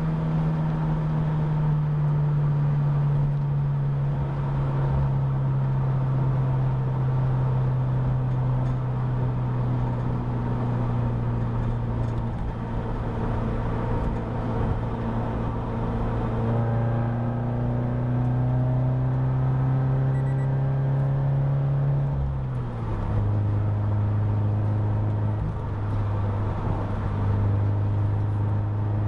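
2013 Scion FR-S 2.0-litre flat-four boxer engine droning through an SRT headerback exhaust, heard inside the closed cabin at highway speed with road noise underneath. The drone slowly falls in pitch as the revs drop, then steps down sharply about 22 seconds in as the car shifts up a gear.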